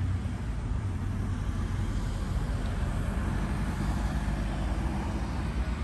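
Steady road-traffic noise: vehicle engines rumbling as cars go round the roundabout close by.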